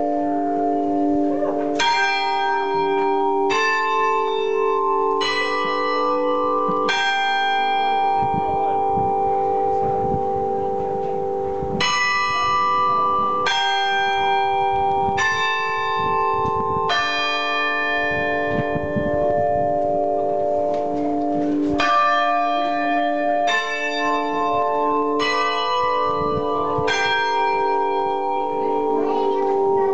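Hallgrímskirkja's church bells ringing loud and close, chiming a tune in groups of four strokes about a second and a half apart, a new group roughly every ten seconds. Each stroke rings on and overlaps the next, so a steady hum of several bell tones fills the gaps.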